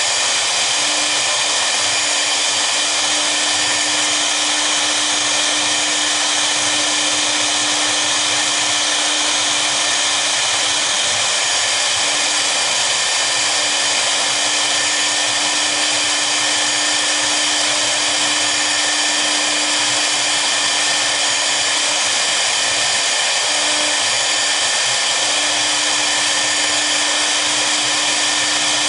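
Twin spindles of a double-spindle CNC router running at speed while their V-bits engrave into a wooden board. The sound is a steady high whine with cutting noise and a constant lower hum.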